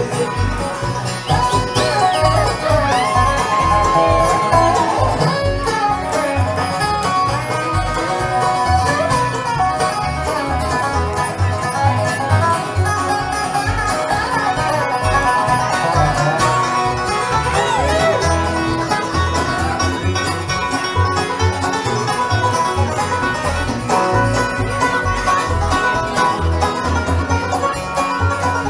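A live bluegrass string band playing: fiddle, dobro, banjo and acoustic guitar over a steady low beat, with sliding notes throughout. The lead passes from fiddle to dobro to banjo.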